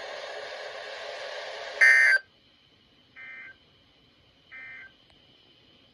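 Steady hiss of an alert broadcast carrying no speech, then the Emergency Alert System end-of-message code: three short, buzzy digital data bursts about 1.3 s apart, the first much louder than the other two, signalling that the alert has ended.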